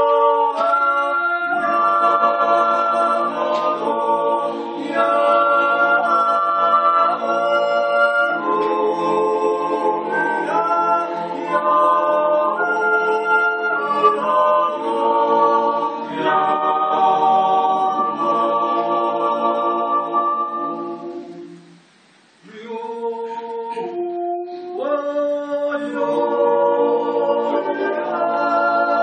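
Swiss yodel club, a mixed choir of men with a few women, singing a cappella in held chords that move in steps. The singing breaks off briefly about three-quarters of the way through, then starts again.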